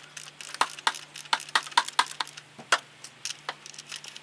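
Socket wrench on the oil filter housing cap of a Holden VE Commodore's Alloytec V6, making a run of sharp metallic clicks, a few a second, as the cap is undone.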